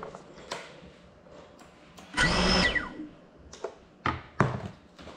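Cinewhoop FPV drone's brushless motors spinning up in one short whining burst of about half a second while the drone sits grounded after a crash, followed by three sharp knocks.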